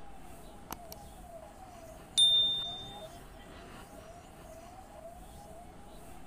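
Subscribe-button animation sound effect: a short click about a second in, then a bright bell ding about two seconds in that rings out over about a second. Under it runs a faint tone wavering up and down about twice a second.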